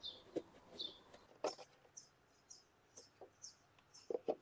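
A small bird chirping, short high chirps that come about two a second from about two seconds in. Over it, a few light clicks and knocks of the plastic engine air filter housing being raised and the filter lifted out, a pair of them near the end.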